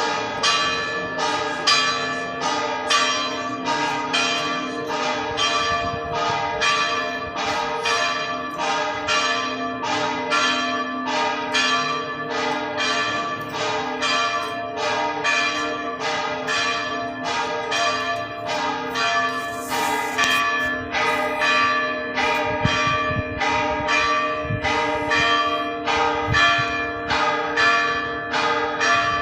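A church bell struck over and over at an even pace, about one and a half strokes a second, each stroke ringing on over a steady hum.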